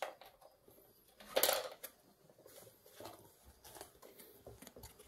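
Handling noise from small hard objects: a sharp click at the start, a brief louder clatter about a second and a half in, then a few faint scrapes and taps.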